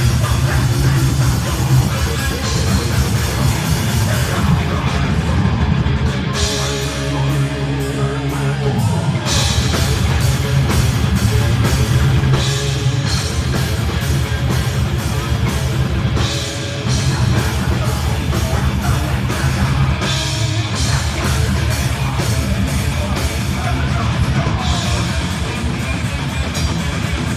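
A heavy metal band playing live, with guitars and rapid, driving drum-kit beats, loud and dense throughout, recorded on a mobile phone.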